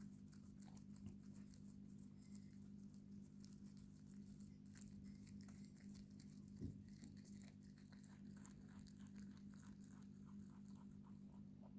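Pet rabbit chewing its food: faint, quick crunching clicks over a steady low hum.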